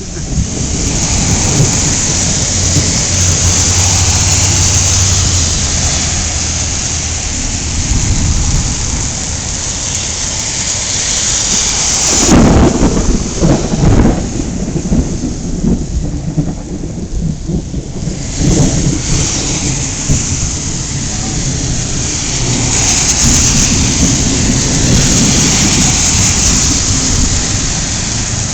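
Heavy rain hissing steadily, with thunder rumbling; the loudest rumble comes a little before halfway through.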